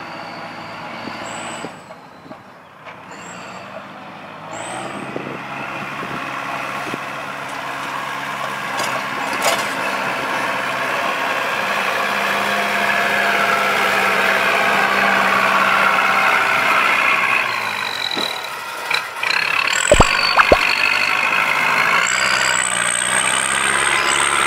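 Kubota diesel tractor engine running under load as it drags a disc plow through deep mud, growing louder over the first half. High whistling tones come and go over it, and two sharp knocks about 20 seconds in are the loudest sounds.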